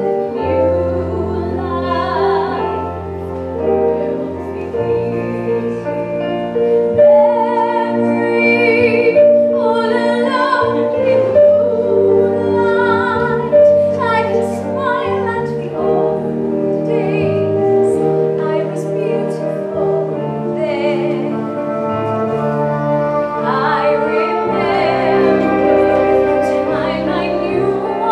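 A slow song: a woman's voice singing with vibrato over long held chords of accompaniment.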